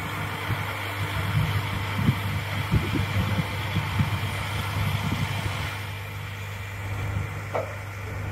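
Lorry-mounted crane truck's diesel engine running steadily, driving the knuckle-boom crane's hydraulics during a lift. Uneven low rumbles come and go over the hum.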